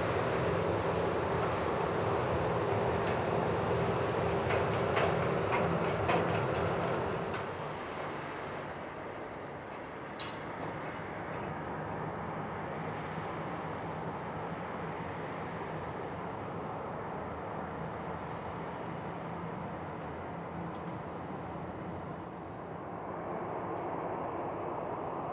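Boeing 737-800's CFM56-7B turbofan engines running at low taxi power: a steady jet rumble with a held whine. It is louder for about the first seven seconds, then settles quieter and steady.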